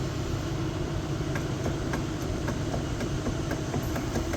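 A steady low mechanical rumble, like an engine running, with a few faint light clicks.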